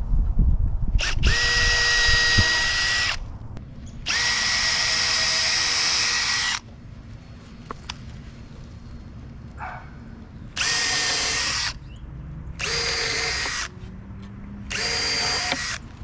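Power drill running in five short bursts, each a steady whine that spins up at the start, as it drives screws through a thin wood strip into a 2x4. A few dull knocks come just before the first burst.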